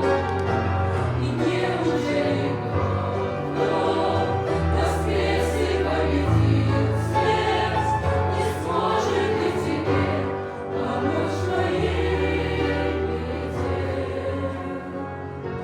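Choir singing a Christian song over instrumental accompaniment with sustained bass notes.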